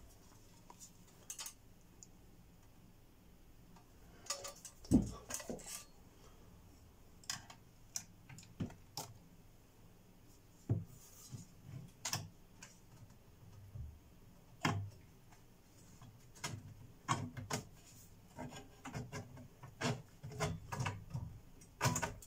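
Sheet-metal rear panel of a Technics SU-V650 amplifier being handled and fitted back onto the chassis: scattered light clicks, knocks and scrapes of metal and wiring, with a sharper knock about five seconds in and another near fifteen seconds.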